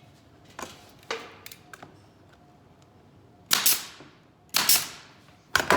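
Hammer driving a nail into a small wooden picnic table leg: a few light taps to start the nail, then three hard blows about a second apart.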